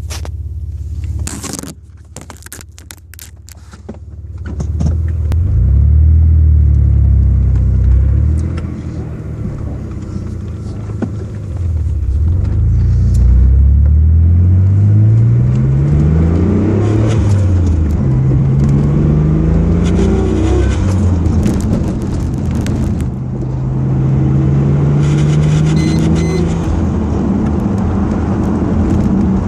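Mitsubishi 3000GT's V6 engine running, its pitch climbing and dropping back several times as when accelerating through the gears, then holding a steady note; the owner calls something in it a weird noise. A few clicks and knocks sound in the first few seconds.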